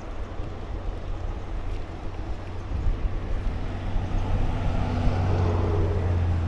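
Wind rumbling on the microphone of a moving bicycle, with a motor vehicle's engine growing louder from about four seconds in.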